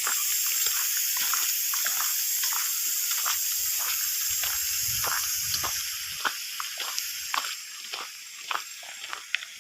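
Water hissing out of a leaking pipe, with many short drips and splashes. The hiss gets quieter about six seconds in.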